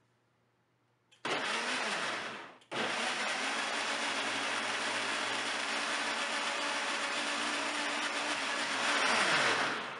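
Countertop blender grinding a thick yogurt, onion and tomato marinade into a paste. It starts about a second in, winds down briefly and starts again, then runs steadily, a little louder just before the motor winds down with a falling pitch at the end.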